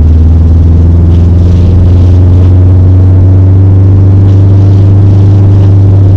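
Subaru STI's turbocharged flat-four engine running at a steady pace while driving, a loud, steady low drone whose pitch creeps up slightly a couple of seconds in.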